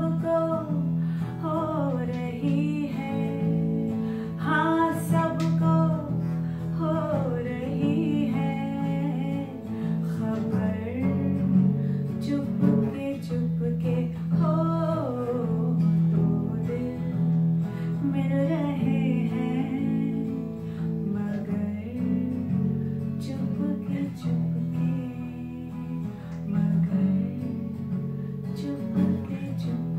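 A woman singing a Hindi film song over a strummed acoustic guitar, in unplugged style with just voice and guitar.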